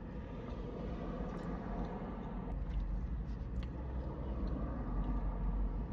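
Someone chewing a mouthful of moist bundt cake, with a few faint mouth clicks, over a steady low rumble.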